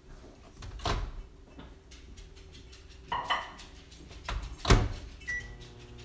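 A handful of separate sharp knocks and bumps, the loudest about three-quarters of the way through.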